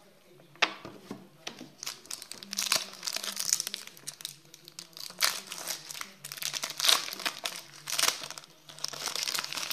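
A foil trading-card sachet being torn open and its wrapper crinkled, in irregular bursts of sharp crackling.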